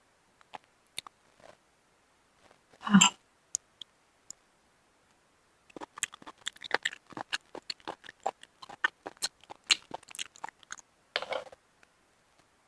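Close-miked eating: a person chewing and biting food in the mouth. There is a single louder burst about three seconds in, then a long run of quick, dense clicks of chewing from about six seconds in.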